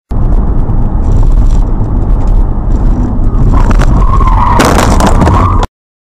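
Loud, deep vehicle noise with a harsher, higher sound joining about three and a half seconds in; it cuts off suddenly shortly before the end.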